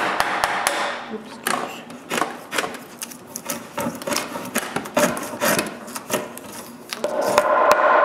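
A wooden mallet striking a chisel in quick blows, then hand-plane strokes shaving wood, as a timber-frame tenon too tight to fit is trimmed down; mallet knocks on the joint near the end.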